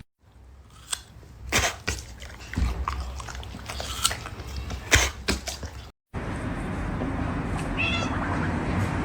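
Domestic cat sounds: scattered knocks and thumps, then a steady background hum with one short, high-pitched meow about eight seconds in.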